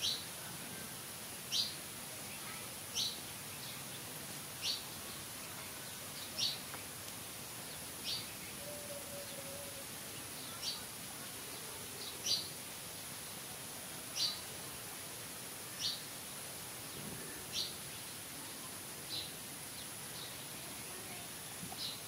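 A bird repeating a short, high, falling chirp at a steady pace, about one every second and a half, over a faint steady high-pitched whine.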